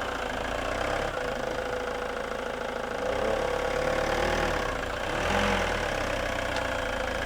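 Ford Transit van's engine running at low revs, rising slightly in level twice as the van is inched forward.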